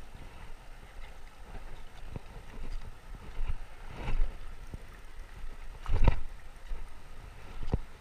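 Shallow river water splashing and lapping, with wind rumbling on the microphone. A few sharp knocks cut through, the loudest about six seconds in.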